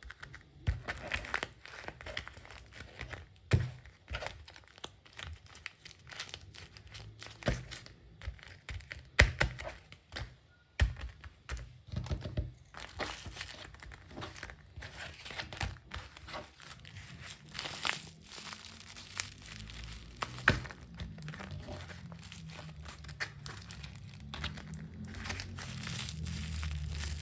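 Homemade paper squishies (paper and tape stuffed with cotton) being squeezed and handled close to the microphone, giving irregular paper crinkling and rustling with occasional louder crackles and taps.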